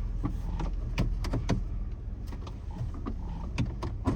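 Inside the cabin of a 2007 Jeep Wrangler JK crawling over a rough trail: a steady low rumble from the 3.8-litre V6 and drivetrain, with frequent sharp knocks and rattles from the body and loose gear as it jolts over the bumps.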